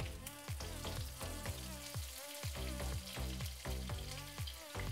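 Fresh curry leaves sizzling in hot mustard oil in a kadhai: a steady frying hiss flecked with small spitting pops.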